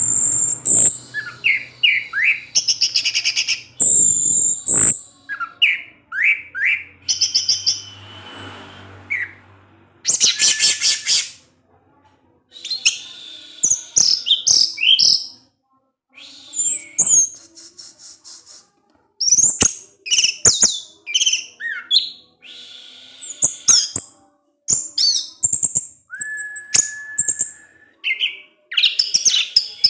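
Orange-headed thrush singing: a run of varied high phrases of quick sweeping whistles and rapid rattling trills, with short pauses between them and one held whistle near the end.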